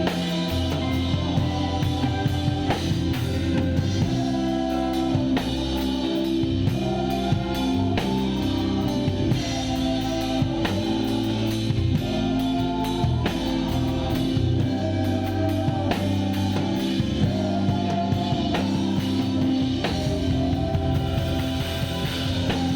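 Live band playing a worship song, with a drum kit keeping a steady beat of cymbal and drum strikes under guitar and a sung melody that rises and falls in repeated phrases.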